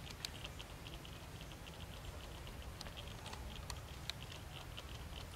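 Outdoor ambience: short high chirps repeat rapidly, several a second, over a low rumble, with a few sharp clicks.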